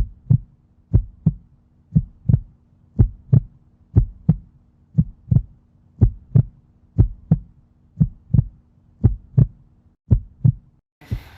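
Heartbeat sound effect: paired lub-dub thumps, about one pair a second, over a low steady hum that cuts off about a second before the end.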